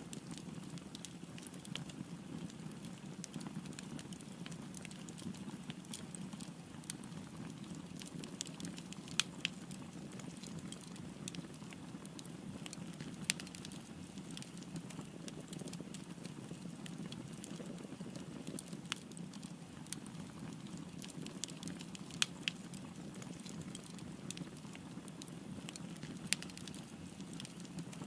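Wood fire burning: a steady low rumble of flames with frequent small crackles and a few sharper pops.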